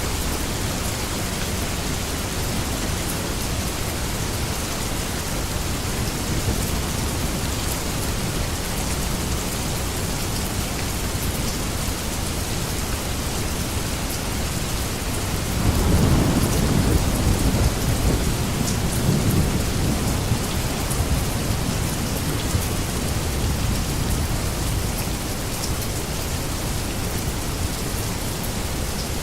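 Steady rain, with a low rumble of thunder swelling about halfway through and rolling on for several seconds before fading back under the rain.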